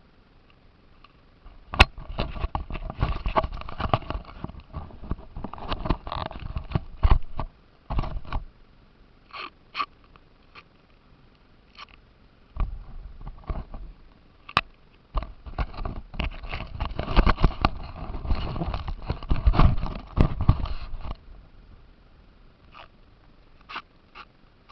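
Radio-controlled car driving in two spells, its motor and drivetrain running under dense rattling and knocking, with a pause between them broken only by a few single clicks.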